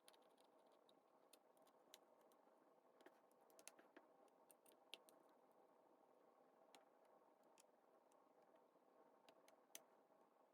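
Near silence: faint, irregular light clicks and ticks, a dozen or so, over a low steady hum.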